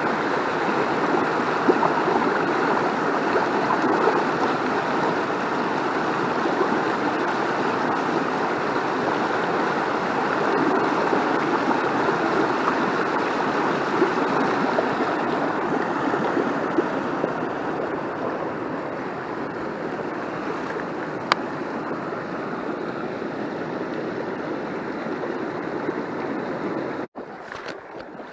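Steady rush of a small stream's flowing water, which drops away abruptly near the end.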